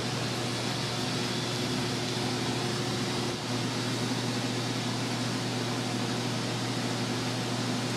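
Steady mechanical hum of a kitchen ventilation fan, an even rushing noise over a low drone.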